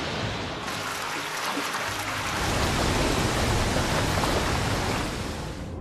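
Steady rushing of water, a heavy stream pouring into a swirling pool. It grows brighter and fuller less than a second in, and cuts off suddenly at the end.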